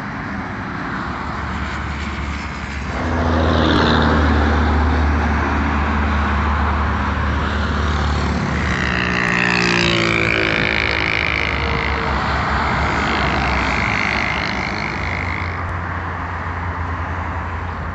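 Highway traffic passing close by: engines and tyre noise, growing louder about three seconds in with a low engine drone, then a vehicle sweeping past with a falling pitch around the middle.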